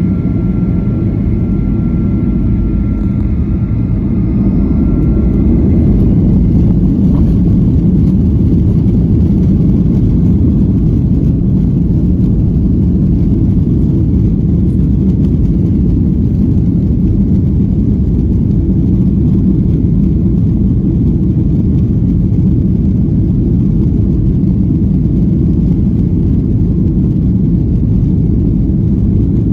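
Jet airliner cabin noise: a loud, steady low rumble of engines and airflow, building a little over the first few seconds and then holding even, with a faint high whine that fades early on.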